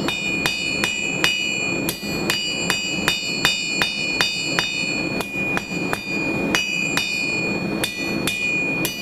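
Hand hammer striking 3/8-inch square steel bar stock on an anvil, flattening its tapered end: a steady rhythm of about two to three blows a second, with two short pauses. Each blow rings, and a high metallic ring hangs on between blows.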